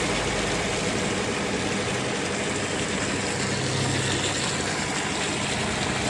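Steady drone of a single-tub washing machine spinning a carpet dry, mixed with water running from a tap into a plastic bucket.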